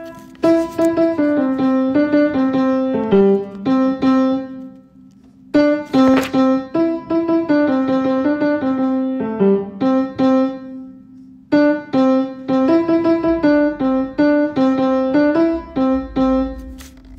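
Piano playing the tenor line of a choral part one note at a time, in short phrases with brief pauses about 5 and 11 seconds in.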